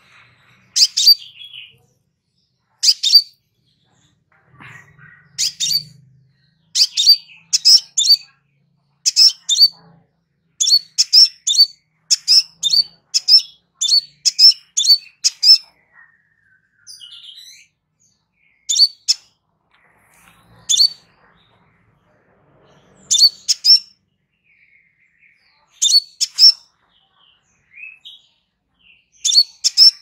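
Crimson sunbird calling: short, sharp, high-pitched chips, given singly or in quick runs of two or three, repeated over and over with a brief pause about halfway.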